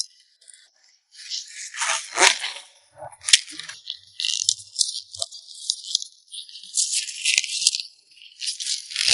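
Rustling and crunching of leafy mustard-tuber greens being gathered and packed, in irregular bursts with a few sharp snaps.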